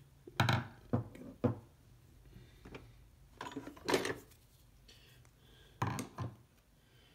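Screwdrivers being taken out of a toolbox and set down on a wooden tabletop: a string of hard clacks and knocks, two or three at a time, three times over.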